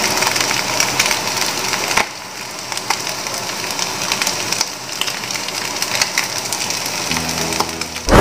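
Sardines and chopped onion sizzling in oil in a frying pan: a steady hiss with scattered crackles, a little louder for the first two seconds. Faint music tones come in near the end.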